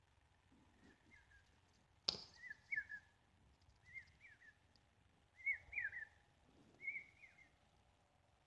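A bird calling faintly over and over, short phrases of two or three quick rising-and-falling chirps about every one and a half seconds. A single sharp knock about two seconds in is louder than the calls.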